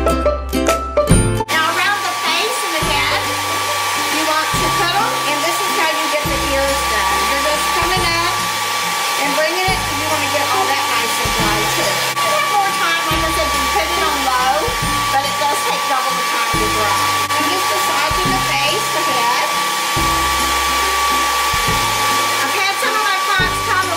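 Handheld hair dryer running steadily as it blows warm air over a wet puppy: an even rush of air with a constant high motor whine. Background music with a stepping bass line plays under it.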